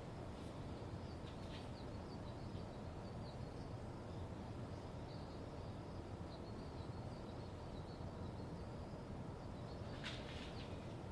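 Songbirds chirping faintly in short scattered calls over a steady low background hum, with a louder burst of chirps near the end.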